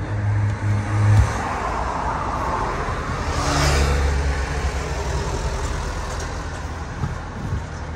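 Road traffic, with a vehicle passing about halfway through.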